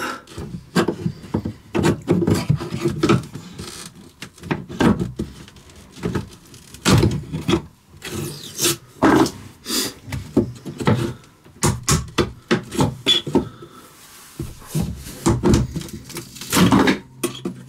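Painter's tool being pried and tapped with a hammer into the seam of swollen, stapled particle-board cabinet trim. Irregular sharp knocks, scrapes and creaks come as the trim is worked loose from its staples.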